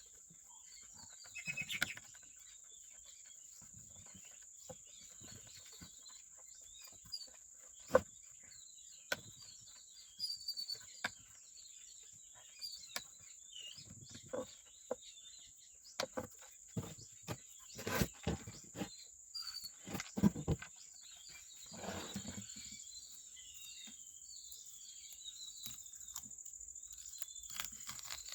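Steady high insect trill with occasional bird chirps, broken by scattered clicks, taps and knocks of small parts and tools being handled.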